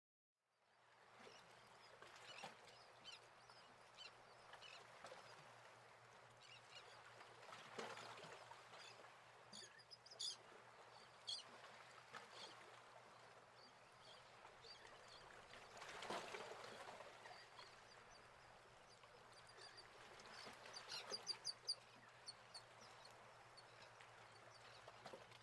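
Faint outdoor ambience with bird calls: a few short high chirps about ten seconds in and a quick run of chirps around twenty-one seconds.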